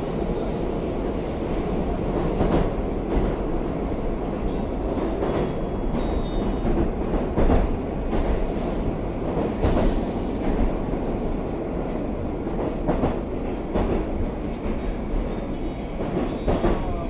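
Cabin noise of a Moscow metro 'Oka' train running through a tunnel: a steady rumble of wheels on the rails, with occasional louder knocks at irregular intervals.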